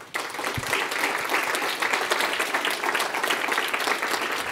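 Audience applauding, with many hands clapping at once in a steady patter.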